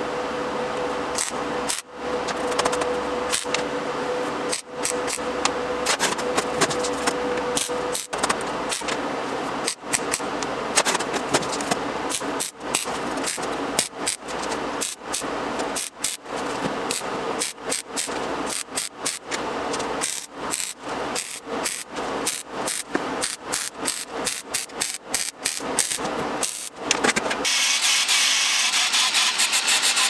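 MIG welder crackling through a run of short tack and stitch welds on steel sheet, with brief pauses between welds that come more often in the second half. About two seconds before the end it gives way to the steadier, high hiss of an angle grinder cutting the steel.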